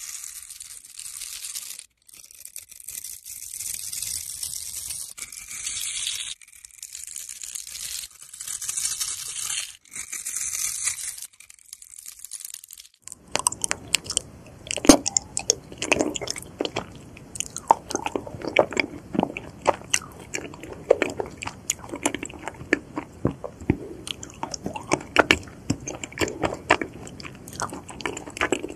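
For about the first 13 s, a blade carves a bar of soap scored into small cubes: a crisp, crumbling, hissy scraping heard in several short clips that cut off abruptly. After that comes close-miked biting and chewing of raw honeycomb, with crisp crackles and sticky, wet chewing.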